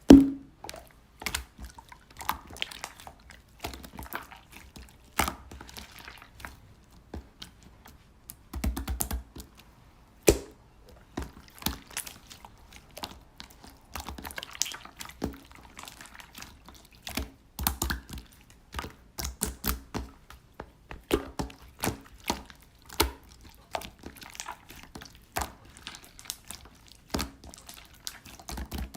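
Slime being squished, stretched and poked by hand: a loud thunk at the start, then an irregular run of wet clicks and small pops.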